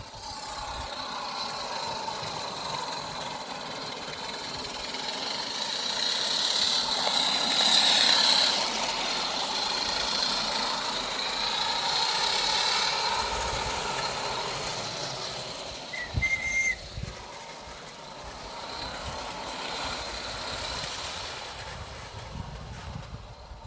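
Accucraft Ruby live-steam garden-railway locomotive running under steam, a steady hiss of steam that builds to its loudest in the first half and then eases off. The engine has just been serviced, with new piston rings, glands and gaskets and its valves retimed.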